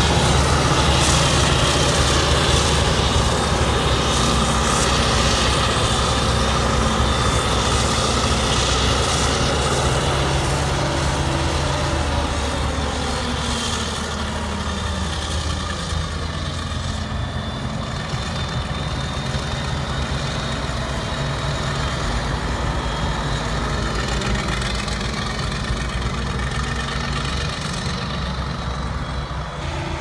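CLAAS Jaguar self-propelled forage harvester running steadily under load as it chops silage corn, a heavy engine drone with a steady higher whine over it. It grows somewhat quieter about halfway through.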